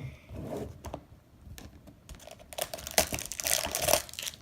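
Plastic toy packaging crinkling and rustling as it is opened, with irregular crackles and clicks that get denser and louder about halfway through.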